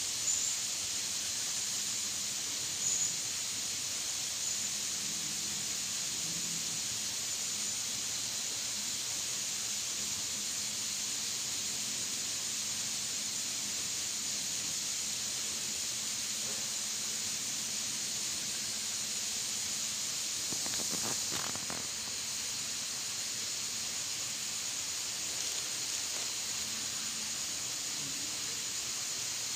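Steady high-pitched drone of an insect chorus from the streamside vegetation, with a few short high chirps near the start. A brief rustle about two-thirds of the way through.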